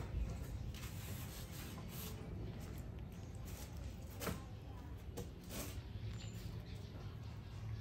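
Scattered small cracks and clicks of nut shells being peeled by hand, a few sharp snaps among them, over a steady low hum.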